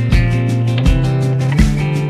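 Background music with a steady beat, a deep thump about every three-quarters of a second under sustained bass notes.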